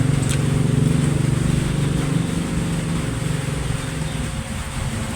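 A motor vehicle's engine passing by, louder at first and fading away over the first few seconds, with a steady faint hum underneath.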